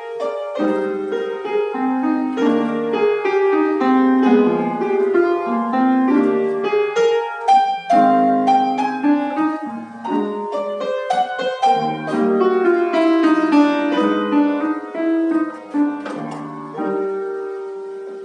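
Solo piano playing a busy passage of many quickly struck notes, settling near the end into longer held notes that fade away.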